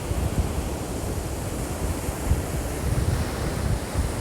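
Wind buffeting a phone microphone with a rumble that swells and dips, over the steady wash of surf on the beach.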